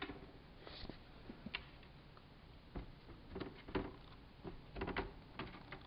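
Scattered light taps, knocks and scrabbles of kittens' paws and claws as they play on a hardwood floor, coming thicker about three to five seconds in, a few with a soft thud.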